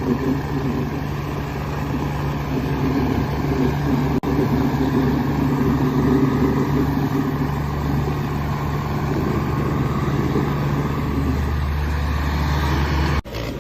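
Tractor diesel engine running steadily, its low rumble holding even, with two very brief dropouts, about four seconds in and near the end.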